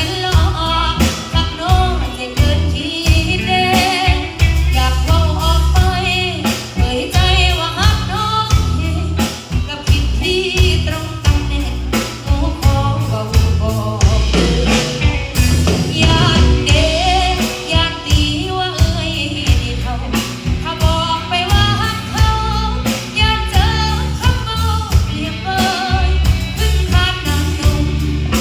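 A live band playing with a lead singer: a steady drum beat, heavy bass and a sung melody.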